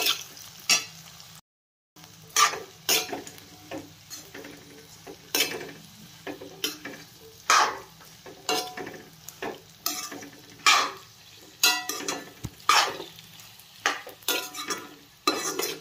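A steel spoon scrapes and knocks against a metal kadai, stirring oil-coated elephant apple slices with spices in irregular strokes about once a second. The oil fries with a light sizzle underneath, and there is a brief dead gap about a second and a half in.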